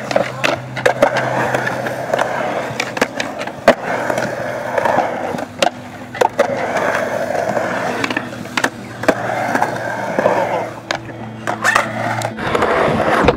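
Skateboard wheels rolling on concrete ramps, broken by repeated sharp clacks of the board and trucks hitting the coping and landing. A steady low hum runs underneath until near the end.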